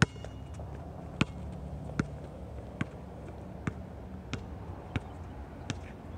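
Basketball dribbled on an outdoor hard court, a sharp bounce about every three-quarters of a second, over a low rumble of wind on the microphone.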